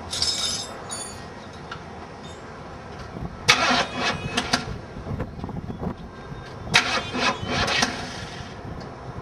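Chevrolet Monte Carlo SS V8 cranked over by its starter in two tries of about a second each, the first about three and a half seconds in and the second about seven seconds in.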